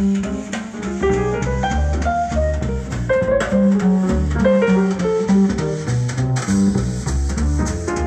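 Music played back through Edifier S2000MkIII powered bookshelf speakers in the room: a jazz tune with plucked double bass, guitar and drums.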